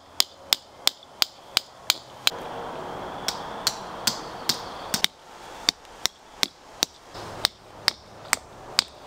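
A hammer driving a tent stake into hard ground: sharp, ringing strikes about three a second, in several runs with short pauses between them.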